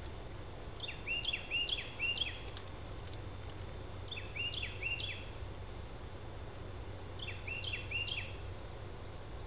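A songbird singing three short phrases, each a quick run of three or four repeated down-curving notes, a few seconds apart, over a steady low hum.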